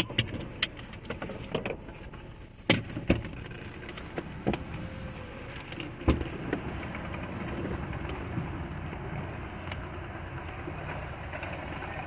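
Scattered clicks and knocks of objects being handled, the sharpest about three and six seconds in, over the steady low hum of a car.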